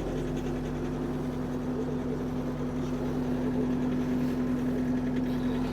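Kubota SSV65 skid steer's diesel engine idling steadily, just after being started.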